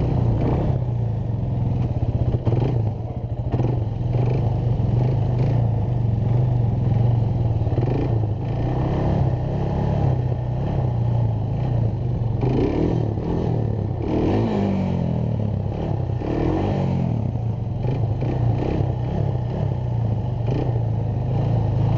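Suzuki Z400 quad's single-cylinder four-stroke engine running steadily under throttle while the quad is held up on its rear wheels in a wheelie. Its pitch rises and falls a few times about halfway through, over a rattle from the machine.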